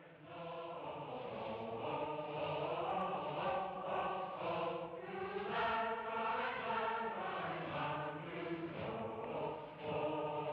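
A choir singing a slow, chant-like hymn in long held notes that glide from pitch to pitch, with a short break between phrases near the end.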